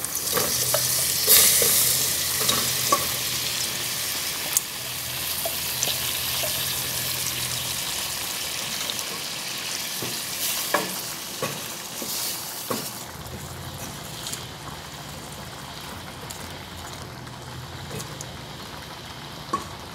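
Shrimp and its lemon-juice marinade sizzling in hot olive oil with browned onion and garlic: loudest about a second in as the wet seasoning hits the oil, then settling to a quieter fry. Stirred with a wooden spoon, which knocks against the pot a few times.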